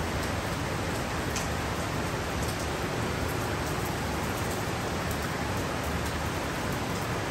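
Heavy driving rain: a steady, even hiss of downpour, with a few light ticks of drops striking close by.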